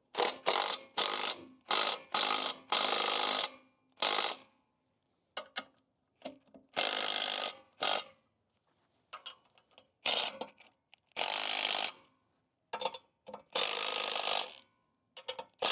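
Ratchet wrench clicking in a series of strokes, short ones and some a second long, with pauses between: bolts being tightened to fasten a bench vise to its mount.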